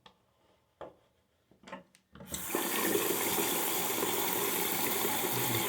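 Lavatory sink faucet turned on, water running steadily into the basin from about two seconds in, after a couple of faint knocks. The tap is being run to test the freshly reinstalled aerator for leaks.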